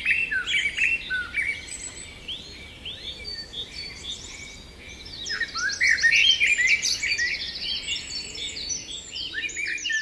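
Songbirds singing: several overlapping songs of short chirps and quick rising and falling notes. The singing grows busier about halfway through, with fast trills.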